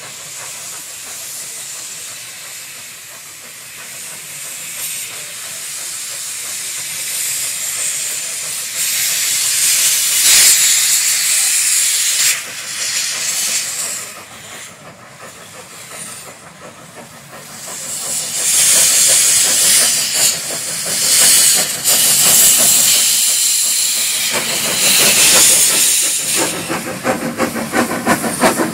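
Steam locomotives hissing loudly as they let off steam, in two long spells with a lull between. Near the end a small saddle-tank steam locomotive comes close, its exhaust beats quick and regular.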